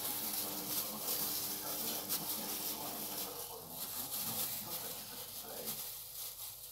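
Gloved hands working raw minced meat: thin plastic food gloves rustling and crinkling with soft squelches as a meatball is shaped around a boiled egg.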